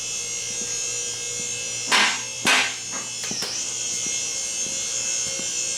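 Car lift's electric hydraulic pump motor running with a steady buzzing whine, with two short louder noisy bursts about two seconds in.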